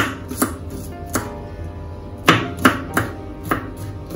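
Knife chopping vegetables on a cutting board: about eight sharp, unevenly spaced strikes.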